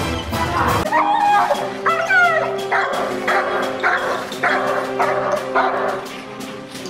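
A protection-trained shepherd dog barking at a decoy in a bite suit: short barks and yips in a quick run, about two a second, a few rising in pitch near the start. Background music with long held notes plays underneath.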